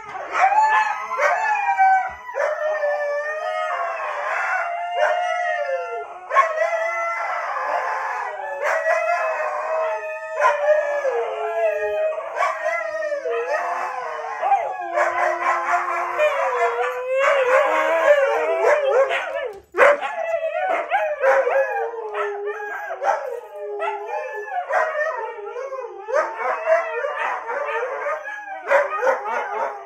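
Several huskies howling together in overlapping, wavering, gliding calls, one voice over another with no pause, broken once by a sudden brief gap about two-thirds of the way through.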